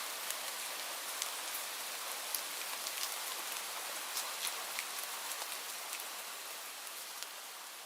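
Light rain falling: a steady hiss with scattered individual drops ticking sharply, slowly fading from about six seconds in.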